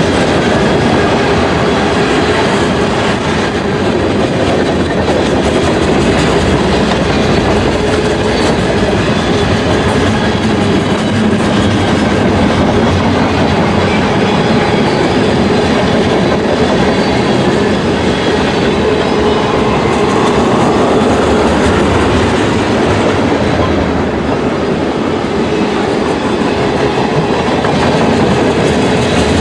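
Freight train's tank cars and covered hopper cars rolling past close by: a steady, continuous noise of steel wheels on rail.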